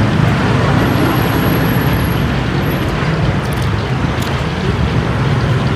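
Steady low rumble of street traffic, with a thin high whine from about one to two and a half seconds in.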